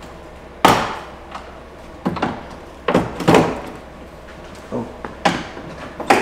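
Plastic trim clips and panel on a car's front end being prised out and handled: a series of sharp clacks and snaps, the loudest about half a second in, more around two, three and five seconds in.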